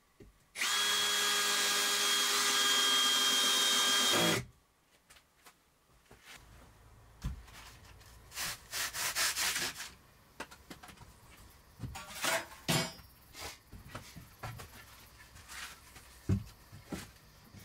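A power tool runs steadily for about four seconds, then winds down. Later a hand saw rasps in short runs of strokes at the wall, with a few knocks of boards being handled.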